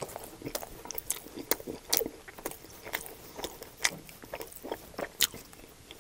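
Close-miked biting and chewing of a steak and cheese quesadilla: irregular sharp clicks and crackles, several a second. The loudest come about two, four and five seconds in.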